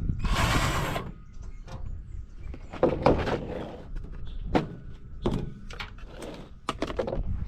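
Knocks, clatters and scraping from a microwave being taken apart. A short, loud scraping rush about half a second in, then scattered sharp knocks and scrapes.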